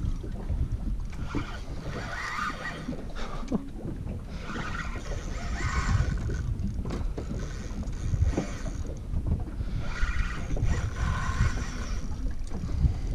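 Spinning fishing reel whirring in about four bursts of a couple of seconds each, a few seconds apart, as line is wound in on a heavy fish; the winding comes in spells between pauses. Low rumble of wind on the microphone and water around the boat underneath.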